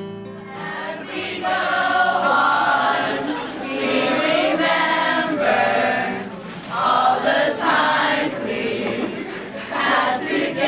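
A group of young people singing together in unison, in three phrases with short breaks between them.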